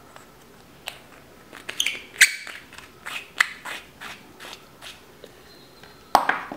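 Battery holder pushed into a metal flashlight tube and the tail cap screwed on: a run of small metallic clicks and scrapes. Near the end comes a louder knock as the flashlight is set down on a wooden table.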